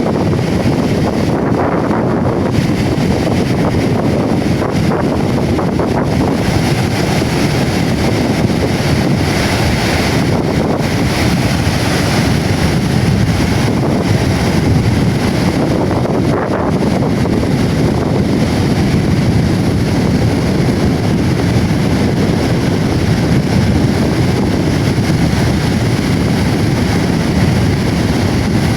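Strong wind buffeting the microphone, a loud steady rumble, with waves breaking on the beach beneath it.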